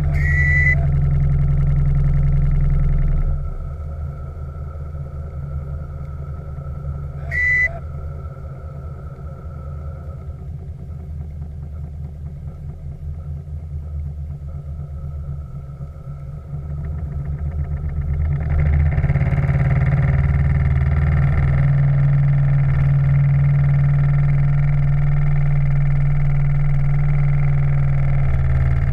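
Steam launch's steam plant running steadily with a low hum. It quietens a few seconds in and grows louder again past the middle. Two brief high-pitched tones sound, one at the start and one about seven seconds in.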